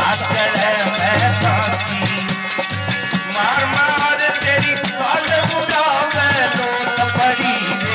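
A man singing a bhajan into a microphone while shaking and clapping kartal (hand clappers with jingles) in a fast, steady rattling rhythm, with a low repeated note underneath.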